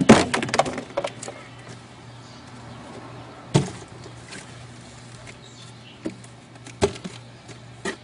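Knocks and clatter of a refrigerator being taken apart for scrap: a burst of rattling at the start, a single knock about three and a half seconds in, and a few sharper clicks near the end.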